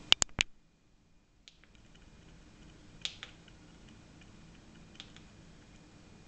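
Three sharp clicks in quick succession at the start, then a few scattered fainter clicks over a faint steady high tone and low hum.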